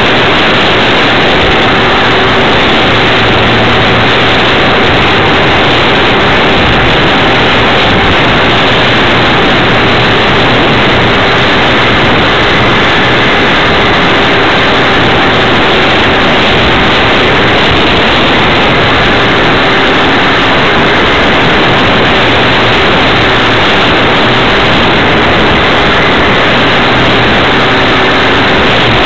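Radio-controlled Tiger Moth model biplane in flight, heard from the camera riding on the plane: its motor and propeller with wind rushing over the microphone make a loud, steady roar with a faint constant hum under it.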